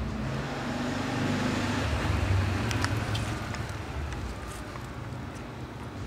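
Low rumble of a motor vehicle passing by, swelling about two seconds in and then fading, with a few faint clicks.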